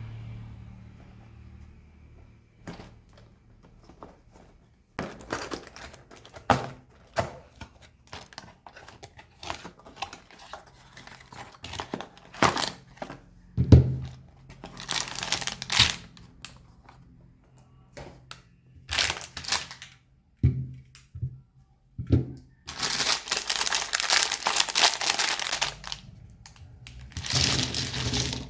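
Packaging being opened by hand: plastic and cardboard crinkling and tearing, broken by many short clicks and knocks. The longest stretches of rustling come late, from about 23 to 26 seconds in and again just before the end.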